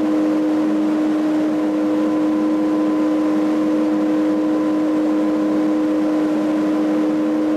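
Fan-driven mist blower running: a steady motor hum with an even rush of blown air.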